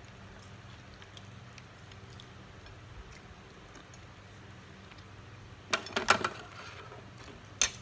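Metal fork and bamboo skewer clicking and scraping against a clear plastic food container while food is pulled apart: a quick cluster of sharp clicks about six seconds in and one more just before the end, over a faint steady hum.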